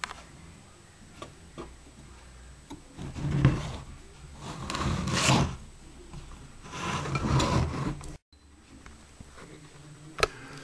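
Hands handling a miniature engine model: three rasping rubs about a second long each, with a few light clicks in between.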